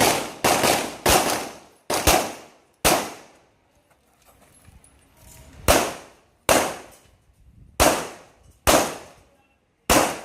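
IPSC Classic-division handgun firing about eleven shots, each with a short ringing tail: three quick shots, two more, a pause of about three seconds, then six shots spaced under a second apart.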